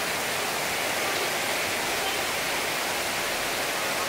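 Heavy rain pouring down, a dense steady hiss with no breaks.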